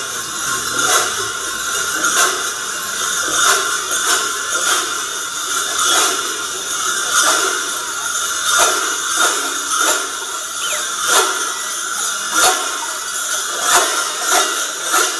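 Dozens of large cowbells strapped to the backs of Sardinian Mamutzones carnival dancers clanging together as the troupe marches and jumps in step. They make a steady rhythmic jangle with a loud accented clash about every second and a quarter.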